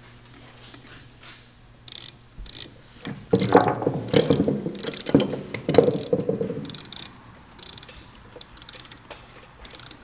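Small hand tools and metal carburetor parts clicking and scraping during hands-on work on an Edelbrock carburetor, in a run of short, irregular clicks that come thickest about a third to two-thirds of the way through.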